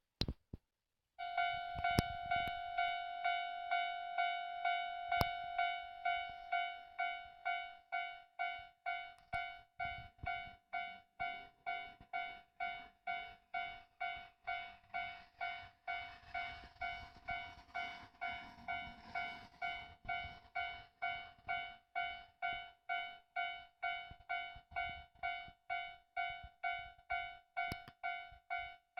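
Japanese level crossing's electronic warning bell starting about a second in, then ringing in a steady, even series of pitched strokes, roughly two to three a second: the signal that a train is approaching and the crossing is closing. A faint rumble and hiss swell under it midway.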